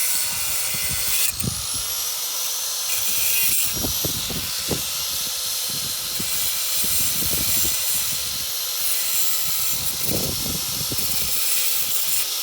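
Angle grinder cutting through steel: a steady, loud, high hiss with a faint whine underneath, broken by a few low knocks.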